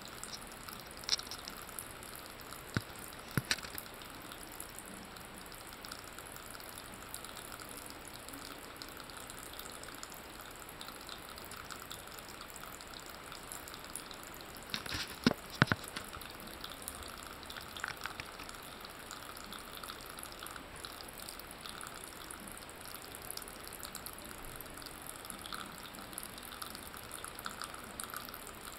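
A thin stream of water trickling steadily from a bathroom tap into the sink, with a few sharp taps, the loudest a pair about halfway through.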